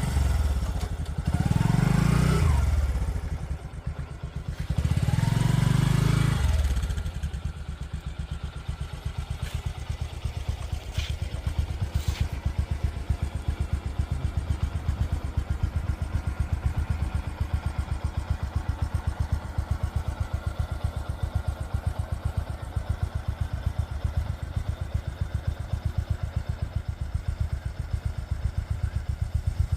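Two motor vehicles pass close by, about two and six seconds in, each engine note rising and then falling as it goes past. After that a steady, fast low engine throb carries on.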